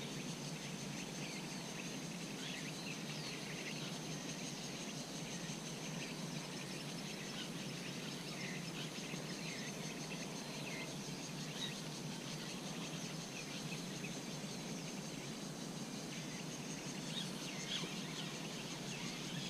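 Steady high-pitched insect trill, with faint scattered bird chirps over a low hum of outdoor background.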